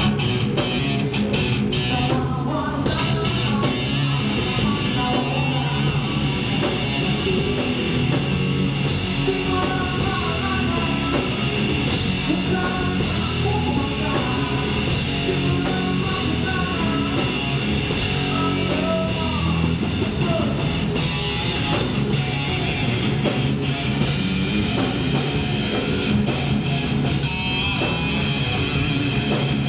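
Rock band playing live, with electric guitars and a drum kit, loud and without a break.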